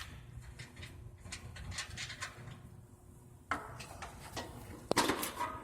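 Hands handling mower parts: scattered light clicks and rattles, then a louder scraping clatter about three and a half seconds in and a couple of sharp knocks near the end.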